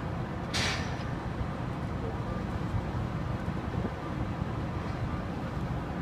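Steady low rumble of the heavy crane's engine running during the lift of a 25,000-pound HVAC section. About half a second in there is one short, sharp hiss of released air.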